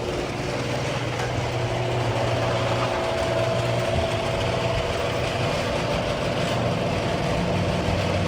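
Garage door opener running a sectional garage door on worn old rollers: loud, steady shaking, rattling, grinding and screeching. The noise is friction in the door, the sign of rollers that need replacing.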